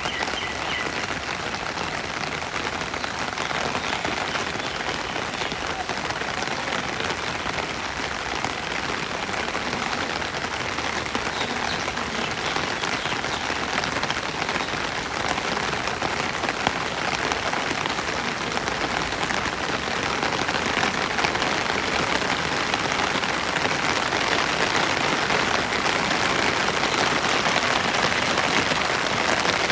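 Steady rain falling, a dense even hiss of many small drops striking surfaces, growing slightly heavier toward the end.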